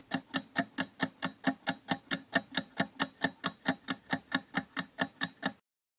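Stopwatch countdown-timer sound effect ticking quickly and evenly, four to five ticks a second, stopping shortly before the end.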